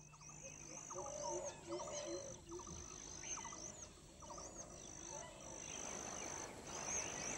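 Wetland nature ambience: several birds calling over and over in short hooked chirps, with a burst of lower, rapid calls in the first couple of seconds. Behind them runs a steady high-pitched insect whine that cuts out briefly a few times.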